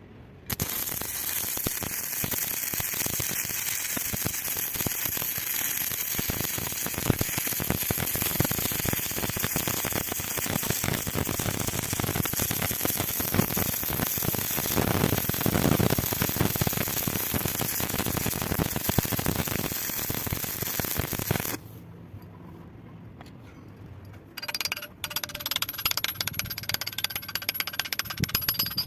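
Electric arc welding: the arc crackles and hisses steadily for about twenty seconds, stops, and strikes up again a few seconds later.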